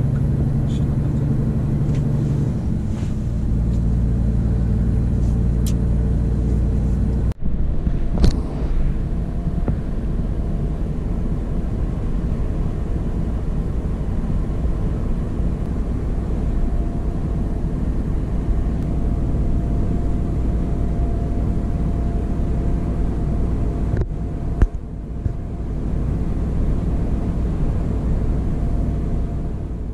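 Scania R500 truck's 13-litre straight-six diesel heard from inside the cab, a steady low drone as it pulls under a 25-tonne load. The sound breaks off abruptly twice, about seven seconds in and again near the end.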